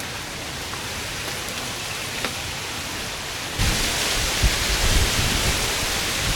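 Steady hiss of rain, which turns heavier suddenly a little past halfway, with irregular low rumbles from then on.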